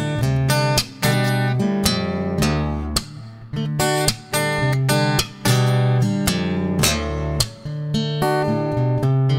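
Background music: strummed acoustic guitar playing a steady rhythmic accompaniment.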